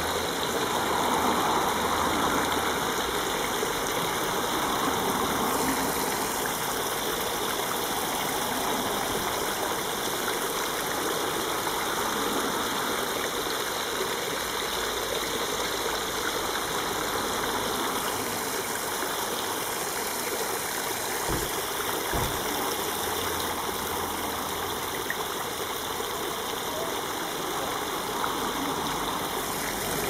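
Water jets spraying from a perforated bamboo pipe and splashing into a shallow spring-fed stream, a steady rushing patter.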